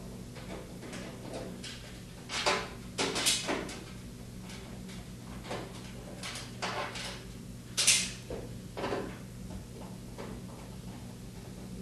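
Screwdriver working screws out of a washer's sheet-metal control shield: scattered metallic clicks and scrapes, the loudest about eight seconds in.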